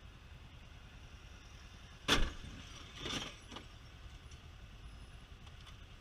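Motorcycle engine idling low in slow traffic, with a sharp knock about two seconds in and a second, softer knock about a second later.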